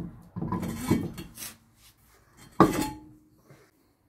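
Metal clatter and scraping as an aluminium alloy car wheel is hung on the hub studs and its lug nuts are started by hand, with one loud ringing metal clank about two and a half seconds in.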